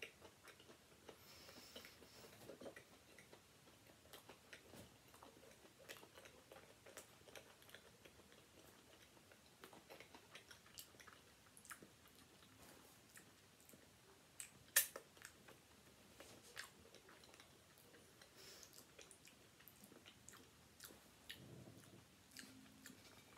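Very quiet chewing of a mouthful of ham, cheese and pickle sandwich on a soft pizza swirl bun, with scattered small clicks and one sharper click about fifteen seconds in.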